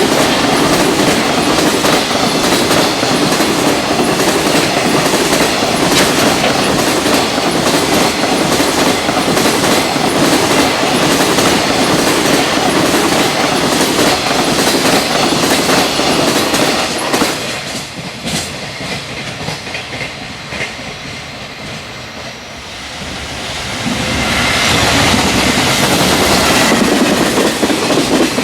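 A fast freight train passing, its wagon wheels clattering rhythmically over rail joints. About two-thirds of the way through the clatter drops away for a few seconds, then builds up loud again.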